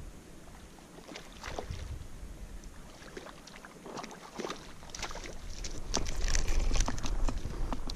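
Wind buffeting the microphone, stronger from about five seconds in, with scattered small splashes and clicks as a hooked rainbow trout is pulled through the shallow water to the shore.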